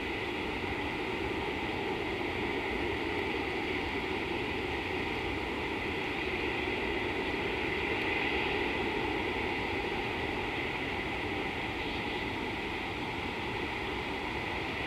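Steady outdoor background hiss with no distinct calls, knocks or other events, swelling slightly about halfway through.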